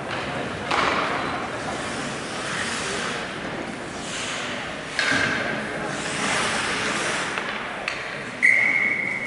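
Ice rink ambience during a hockey stoppage: echoing indistinct voices from players and the bench, with sudden loud calls three times. The last one, near the end, is a sharp steady high-pitched sound held for about a second.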